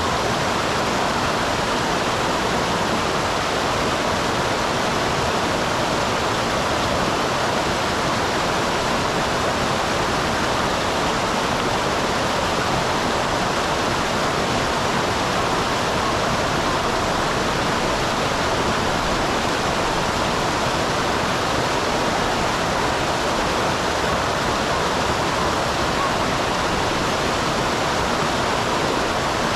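Small waterfall in a mountain stream: water pouring and splashing in a steady, unbroken rush.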